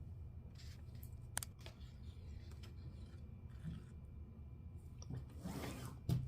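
Quiet kitchen handling sounds over a low steady hum: a sharp click about a second and a half in, then a short scraping swish ending in a knock near the end.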